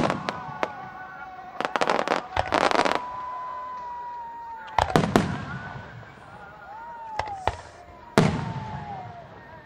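Aerial firework shells bursting: a dense crackle of many small sharp reports about two seconds in, then several deep booms with echoing tails around five, seven and eight seconds in.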